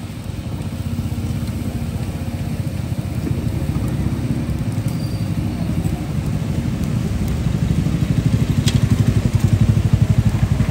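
Motorcycle engine running with a fast, even low pulsing, growing louder in the second half.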